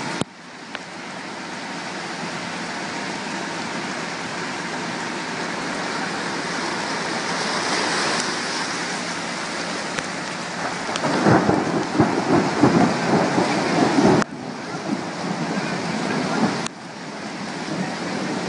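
Flooded river's muddy water rushing past in a steady roar. For a few seconds past the middle it swells into louder, gusty rumbling, and the sound drops off abruptly twice near the end.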